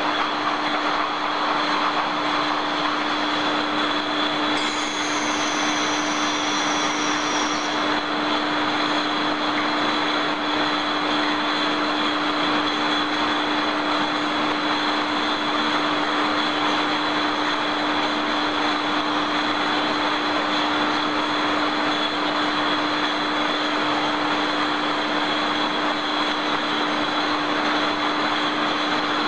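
Steady machinery noise of a glass-bottle loading line feeding a hot water autoclave: a constant hiss with a low steady hum and a high whine. About five seconds in, a high whistle slides down in pitch for about three seconds.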